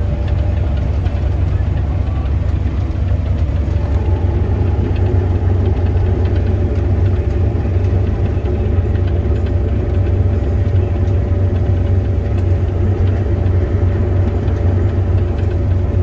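Claas Lexion combine harvester running while cutting wheat, heard from inside the cab: a steady low drone with a constant whine above it.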